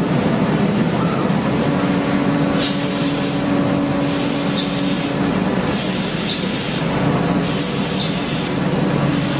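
CNC machining equipment running on an engine-block line: a steady mechanical hum with a held tone, and a hiss that comes and goes in short spells.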